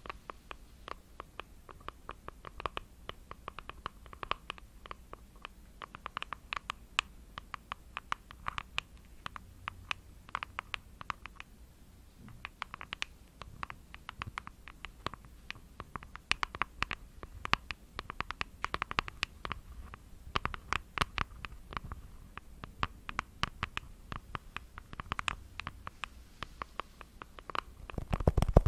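Long fingernails tapping quickly on a small printed cardboard packet held close to a microphone: an irregular run of crisp clicks, several a second.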